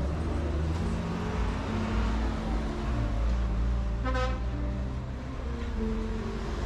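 Road traffic with a vehicle engine running low and steady, and a short car horn toot about four seconds in.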